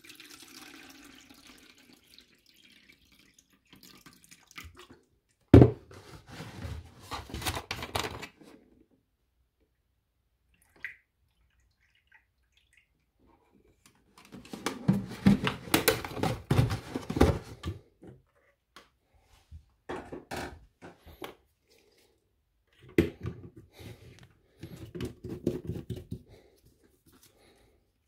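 Liquid poured through a small plastic funnel into a spray bottle, water first and then white vinegar from its plastic bottle, with pouring and trickling sounds. There is a sharp knock about five seconds in, and plastic clicks and handling noises near the end as the trigger sprayer head is fitted back on.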